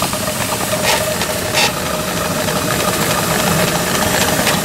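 7½-inch gauge Clishay geared live-steam logging locomotive running forward under steam: rapid exhaust beats with mechanical rattle, a thin steady tone over it, and two short bursts of hiss early in the run.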